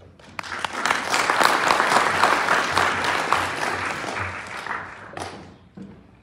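Audience applauding. It starts about half a second in, swells quickly, and dies away about five seconds in.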